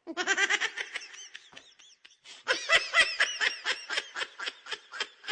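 A man laughing: a short burst of laughs at the start, then a longer run of short, evenly paced laughs, about four or five a second, from about halfway through.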